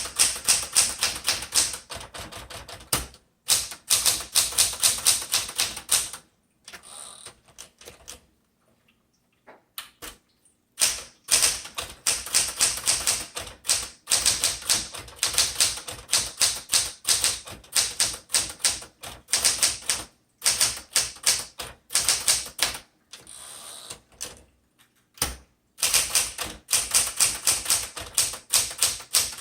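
A 1975 Smith Corona Classic 12 manual typewriter being typed on: runs of rapid, sharp keystrokes at several a second, broken by a few short pauses.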